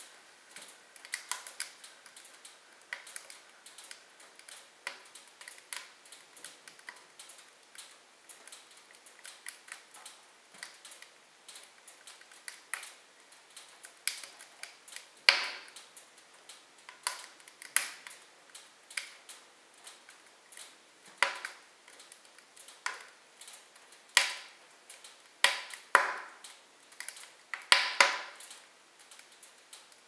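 Wood logs burning in a fireplace, crackling with irregular sharp pops and snaps; the loudest pops come in the second half.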